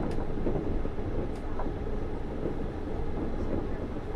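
Automated rubber-tyred metro train running, heard from on board: a steady rumble of running gear and tyre noise, with a few faint clicks, the clearest just after the start and about a second and a half in.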